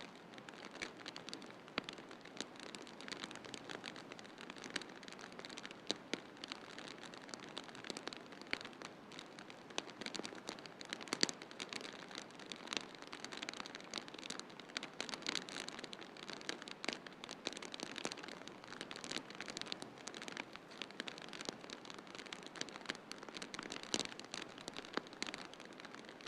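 Wood fire crackling in a fireplace: many irregular pops and snaps, a few louder than the rest, over a steady hiss.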